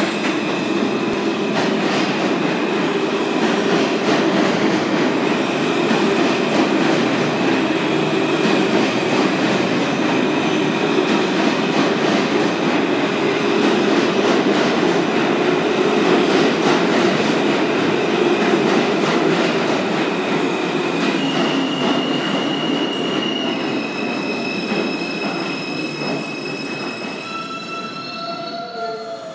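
New York City Subway R160 train with Alstom propulsion pulling into the station and braking to a stop: a loud, steady rumble of wheels and motors with a high steady tone over it. In the last few seconds the tone changes pitch in steps and the rumble slowly fades as the train slows.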